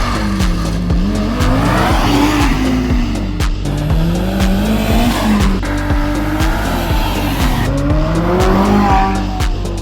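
A supercar engine revving up and falling back about four times, over music with a steady beat.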